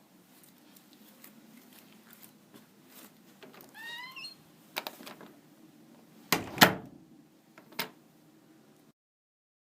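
A door being opened: small handle and latch clicks, a short rising squeak about four seconds in, then a heavy thud of the door a couple of seconds later, which is the loudest sound, and one more click. Dead silence near the end.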